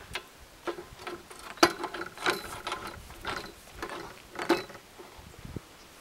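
Winding handles on a Lucas portable sawmill's end-frame posts being cranked: irregular metallic clicks and clanks from the winch gearing, some with a short ring.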